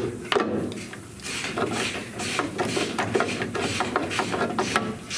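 Damaged sheet-steel section of a car's front rail area being twisted and pulled free by hand: a quick run of metal scrapes, clinks and knocks.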